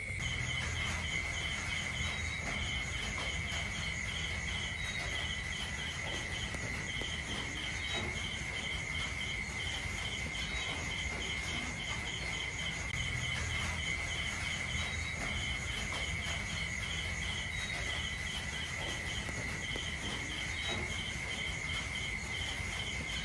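Night insects: a steady high trill with crickets chirping in a fast, regular pulse above it, over a low steady rumble.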